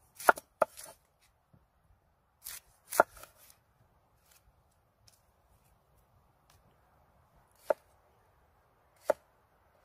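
Kitchen knife cutting an onion on a wooden cutting board: sharp knocks of the blade hitting the board, a quick cluster of three near the start, two around three seconds in, and two single knocks near the end.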